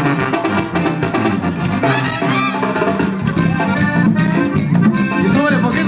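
Live band playing upbeat Latin dance music, with a horn section and drums.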